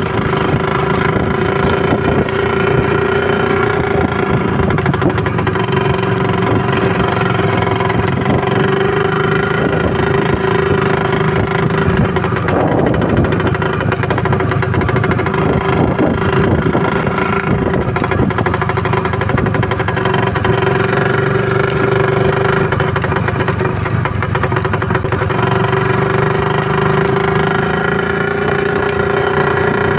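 IZh two-stroke motorcycle engine running at a steady speed, its note holding one pitch throughout.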